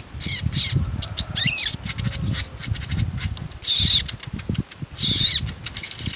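Sogon songbird singing a busy run of short chirps and quick sweeping whistled notes, over a low rumble.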